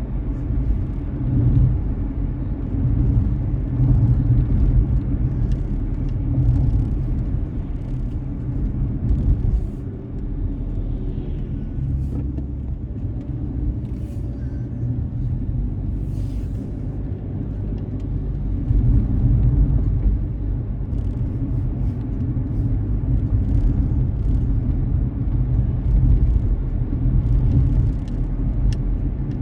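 Steady low rumble of a car driving: road and engine noise, with scattered faint clicks.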